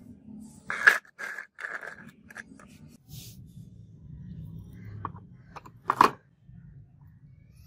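A rusty steel knife blade and a plastic tray handled on a concrete floor: a few sharp knocks and scrapes, loudest about a second in and again about six seconds in.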